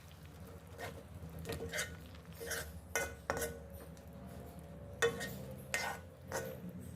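A cooking utensil stirring curry in a pot, knocking and scraping against the pot's side about nine times at an uneven pace.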